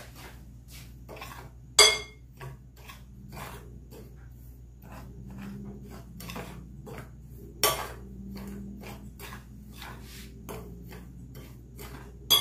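Metal spoon stirring a dry flour mix in a glass bowl: a run of light scrapes and taps against the glass, about two a second. Sharper clinks of the spoon on the bowl come about two seconds in, near eight seconds, and at the very end.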